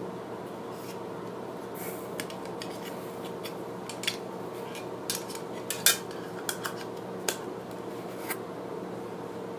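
Thin metal heart-shaped tin box clinking and tapping as its lid and base are handled and pressed closed: a scatter of light metallic clicks, the loudest about six seconds in.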